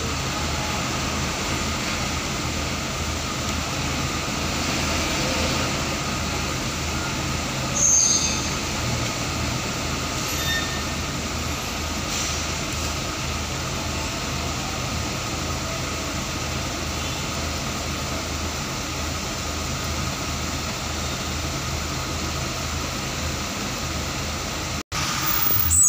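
Steady low engine drone from trucks and the ship's machinery on an enclosed ferry vehicle deck, with a brief high-pitched hiss about eight seconds in.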